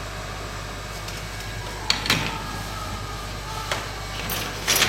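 Hot air rework station blowing steadily, with a few light clicks and short scrapes of tools on the circuit board.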